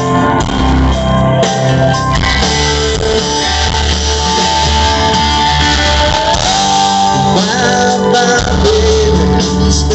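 Live rock band playing loud through a stage PA: electric guitar over bass and drums, with a man singing.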